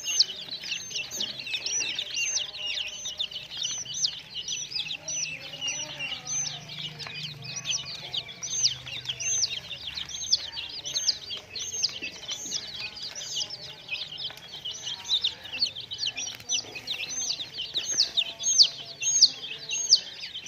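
A crowd of baby chicks peeping together: many short, high chirps that rise and fall, overlapping in a constant chorus.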